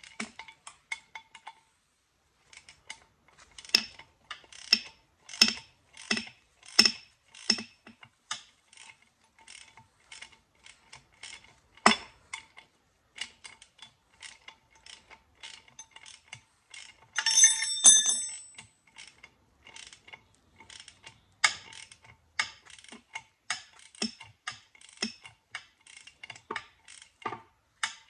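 Ratchet wrench clicking in repeated short strokes while working the bolts on an old engine's flywheel. About 17 seconds in comes a short, louder run of rapid clicking with a metallic ring.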